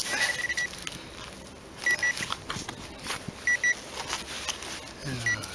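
Metal detector beeping in short clusters of high, same-pitched pips while a target is being located in the soil, with scrapes and knocks of digging between them.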